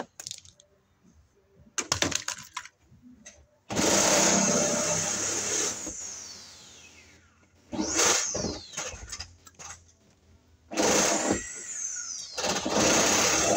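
Cordless drill running in four bursts, its motor whine falling away each time the trigger is let go. A few sharp clicks come before the first run.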